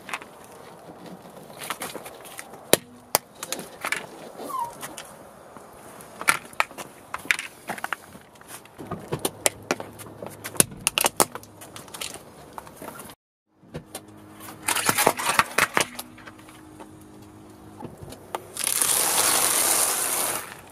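A hard plastic toy car cracking and snapping under a slowly rolling car tyre: a long series of sharp cracks. After a cut, a loud burst of dense crunching near the end as the tyre crushes something brittle.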